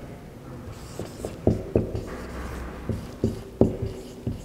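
Marker pen writing on a whiteboard: a run of short, sharp strokes and taps starting about a second in, as letters are drawn.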